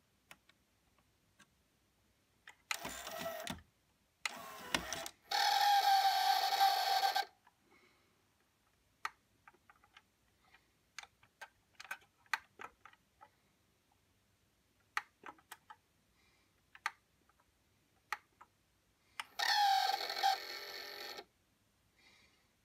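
Small motor in a Sony TC-K222ESG cassette deck running in short bursts, one around 3 s in, a longer one from about 4 to 7 s, and another near the end that falls in pitch as it winds down; scattered light clicks sound in between. The deck's rubber mode belt is broken.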